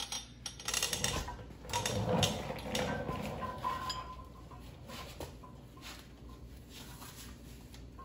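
Irregular clattering and light metallic clinks of objects being handled, busiest in the first few seconds, then fainter scattered taps.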